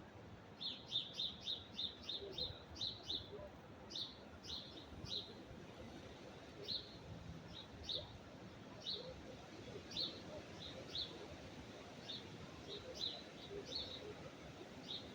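A small bird chirping: a quick run of short, high chirps about a second in, then single chirps spaced out. Underneath is a steady low rumble of wind noise.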